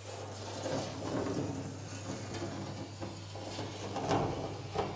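Workshop handling noise: irregular rustling and clattering with a few sharper knocks, loudest about four seconds in, over a steady low hum.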